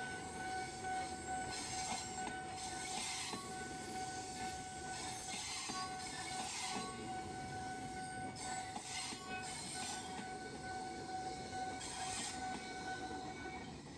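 KRL TM6000 electric commuter train rolling slowly past, with irregular clatter from the wheels and a steady high tone that stops near the end.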